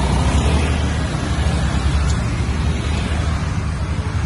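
Motor scooters running slowly past at close range, their engines mixed into a steady low rumble of wind on the microphone.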